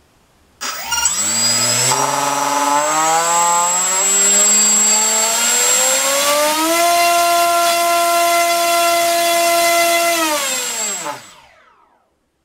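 Turnigy 2826-6 2200kV brushless motor spinning an APC 6x4 electric propeller on a thrust test: it starts about half a second in with a whine that climbs steadily in pitch for about six seconds, then holds steady at full throttle for about four seconds. It then winds down in pitch and stops near the end, with a thin high steady tone above the whine for much of the run.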